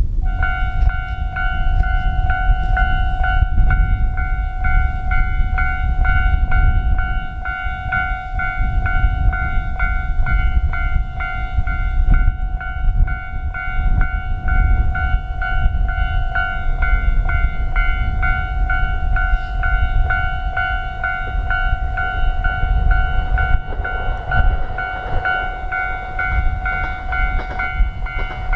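Japanese railway level-crossing alarm ringing, a steady ringing tone repeated in a regular ding-ding rhythm, over a low rumble.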